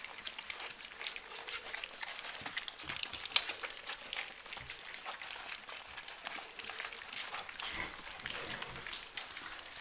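A litter of puppies eating together from a shared metal bowl: a dense, irregular run of quick lapping and chewing clicks, with the bowl knocking and one sharper knock about three and a half seconds in.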